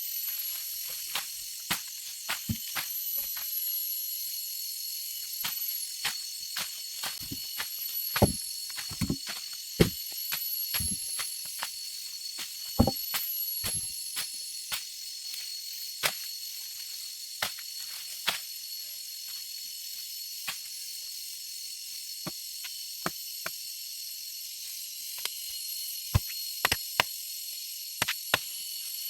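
Steady high-pitched insect drone, as of cicadas or crickets, with many short sharp knocks and clicks scattered through it, thickest in the middle; no chainsaw is running.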